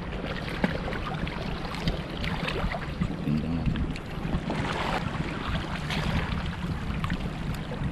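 Shallow seawater sloshing and splashing, with wind buffeting the microphone.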